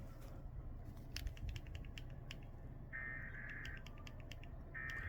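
Emergency Alert System digital data tone (SAME header): one short burst of buzzing two-pitch data tone about three seconds in, and a second identical burst starting near the end. This is the coded header that opens a new alert. Under it, a low hum and scattered clicks.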